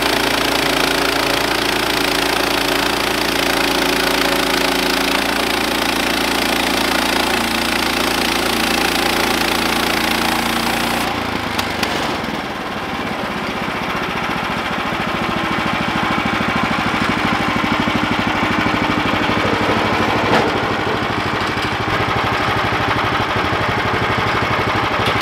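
Portable bandsaw sawmill running, its engine steady under the hiss of the band blade sawing through a log. About 11 seconds in the blade leaves the cut and the hiss drops away, leaving the engine running steadily while the saw head travels back along the track.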